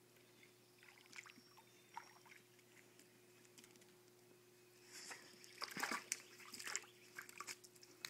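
Faint sloshing and splashing of lake water stirred by a Vizsla puppy at the water's edge. It is mostly quiet, with a short run of louder splashes about five seconds in.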